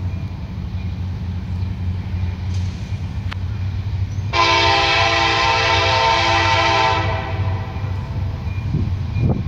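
Norfolk Southern SD75M locomotive's air horn sounding one chord blast of about two and a half seconds, starting a little under halfway through, over the steady low rumble of the moving train.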